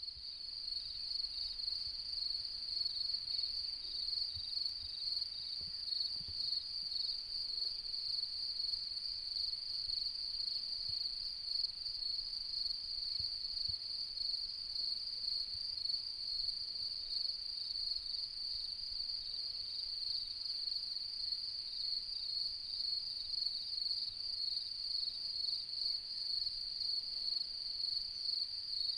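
Crickets chirping in a steady, high-pitched, finely pulsing trill that fades in at the start.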